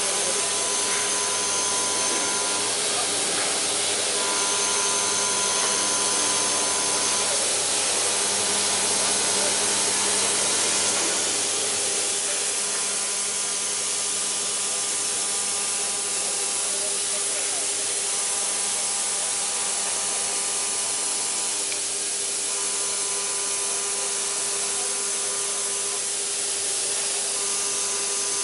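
SMTCL CNC vertical machining center milling aluminium with a small end mill: a steady hiss of machine and cutting noise, with thin pitched tones that start and stop every few seconds.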